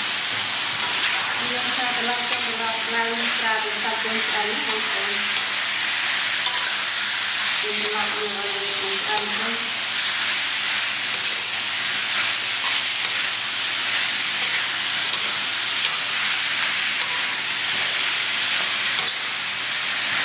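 Pork ribs and lemongrass sizzling in a wok while a metal spatula stirs and scrapes them round the pan. The sizzle is a steady hiss, broken by occasional clicks of the spatula against the wok.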